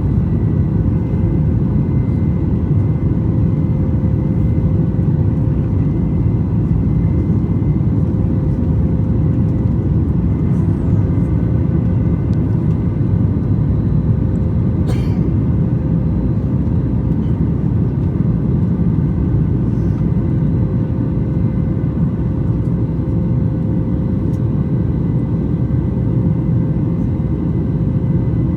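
Steady cabin noise inside a Boeing 737 MAX 8: a deep, even rumble of engines and airflow with a faint steady whine above it. A single brief click about halfway through.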